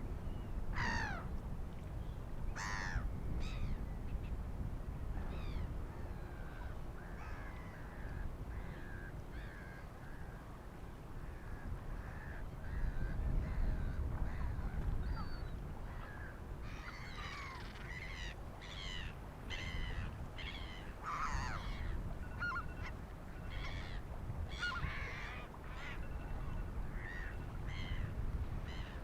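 Black-headed gulls and hooded crows calling: two falling, drawn-out calls about one and three seconds in, then a long run of short harsh calls in the second half. Under them runs the steady low rush of the sea.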